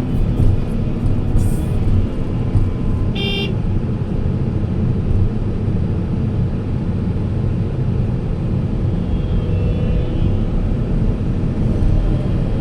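Heavy earthmoving machinery's diesel engine running steadily with a deep, even drone, and a short high horn toot about three seconds in.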